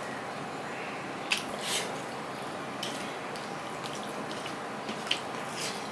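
Eating by hand: a few scattered wet mouth clicks and smacks while chewing rice and curry, with fingers gathering rice on a steel plate, over a steady background hiss.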